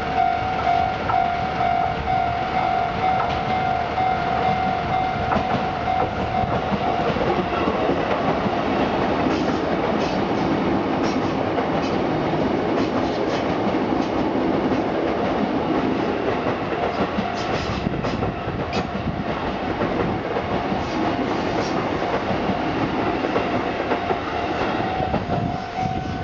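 A Japanese level-crossing warning bell rings its rapid, repeated electronic clang throughout. About seven seconds in, a Sotetsu Line train rumbles through the crossing, its wheels clicking over the rail joints, and the train noise drowns the bell before easing off near the end.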